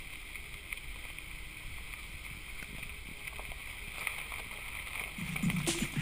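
Faint, steady outdoor background noise with a few light clicks; music comes in about five seconds in and grows louder toward the end.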